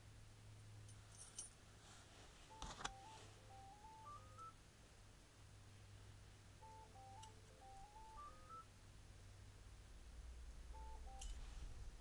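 A short electronic tune of stepped beeps, climbing at its end, played twice about four seconds apart and starting a third time near the end. A sharp click comes a little under three seconds in, over a faint low hum.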